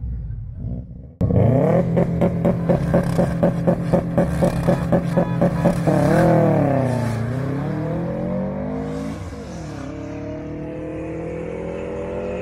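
A performance car's engine starts abruptly about a second in. It is held at steady high revs with a rapid rhythmic pulsing, about three or four beats a second, then swings down and back up in pitch before pulling away with a slowly rising note as the car accelerates hard.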